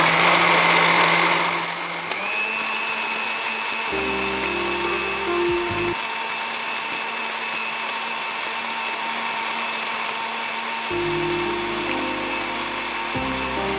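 Electric countertop blender running, grinding pomegranate chutney of pomegranate seeds, onion and tomato. It is loud and rough for the first two seconds, then settles into a steady motor whine as the mix turns smooth.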